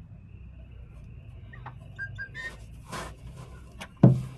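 A steady low hum with a few short, high bird-like chirps about two seconds in, then a single sharp thump near the end.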